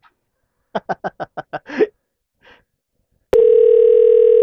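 Telephone line sounds as a new outgoing call is placed: a quick run of about nine short blips about a second in, then one loud, steady, buzzy ringing tone lasting about a second and a half near the end that cuts off sharply.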